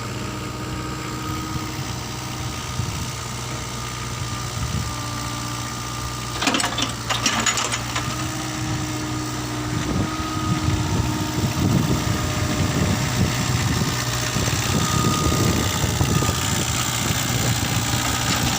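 Mitsubishi mini excavator's diesel engine running steadily. About six seconds in there is a brief burst of clanking. From about ten seconds in the engine gets louder and more uneven, as though working under load.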